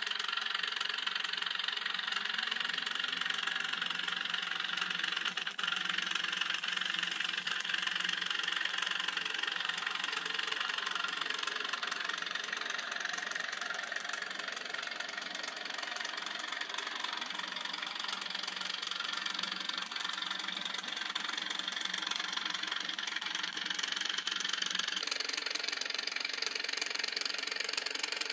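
Freshly rebuilt Simplex engine running steadily on its first test run, with a knocking beat. Its lower hum drops away about three seconds before the end.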